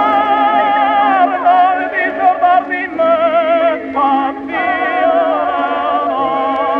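Operatic singing: a high voice holding notes with heavy vibrato, changing pitch every second or so, over a steady sustained accompaniment.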